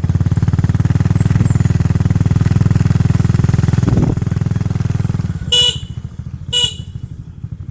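Motorcycle engine running steadily, dropping in level about five seconds in, followed by two short horn beeps about a second apart.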